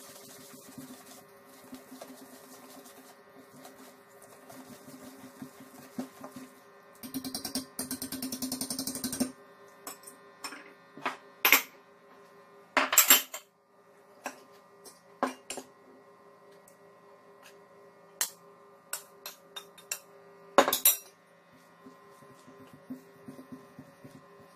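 Wire whisk stirring flour in a stainless steel mixing bowl, with a burst of fast whisking strokes about seven seconds in. After that come scattered sharp clinks of utensils and small bowls against the steel bowl and the table, a few of them loud.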